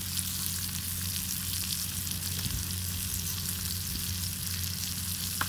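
Needlefish fillets frying in butter and garlic in a pan: a steady sizzling hiss with fine crackling spits, over a low steady hum.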